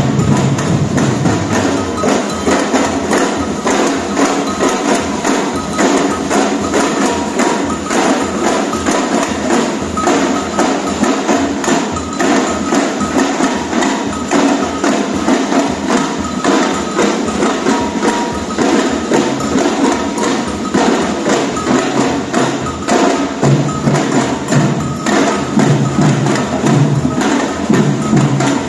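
Batucada samba percussion band playing a fast, dense rhythm on drums, with bright clacking and jingling percussion on top. The low drum pattern changes about two seconds in and again near the end.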